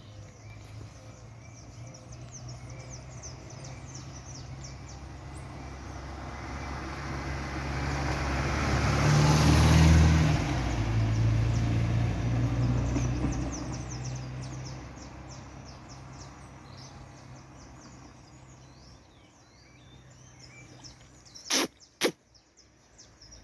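A passing car, its engine and tyre noise swelling to a peak about ten seconds in and then fading away, with small birds chirping faintly. Two sharp clicks near the end.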